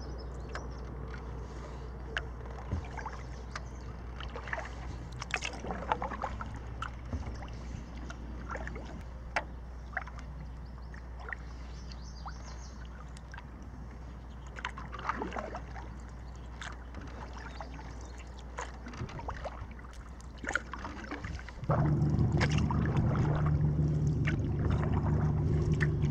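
Kayak paddle strokes: water splashing and dripping off the paddle blades at irregular intervals over a low steady rumble. Near the end, a louder steady droning hum starts abruptly.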